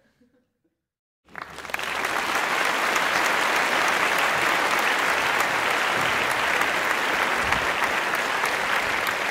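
Applause: many hands clapping in a dense, steady patter. It starts suddenly about a second in, after a moment of dead silence.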